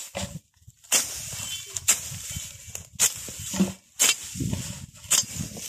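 Machete chopping through dry grass and weeds close to the ground: five sharp swishing cuts about a second apart, with dry grass rustling between strokes.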